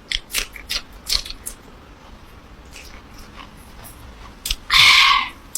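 Close-miked mukbang biting and chewing of mắm thái (Vietnamese fermented fish relish): a quick run of sharp crunches and mouth clicks in the first second and a half, then sparser chewing, and a louder burst about half a second long near the end.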